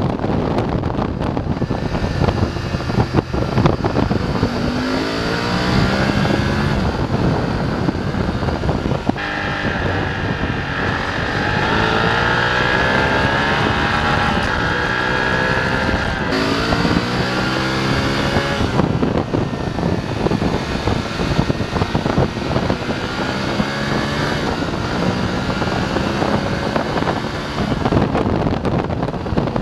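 BMW F850 GS parallel-twin engine pulling through the gears, its pitch climbing and dropping back at each shift several times, with wind noise over the microphone.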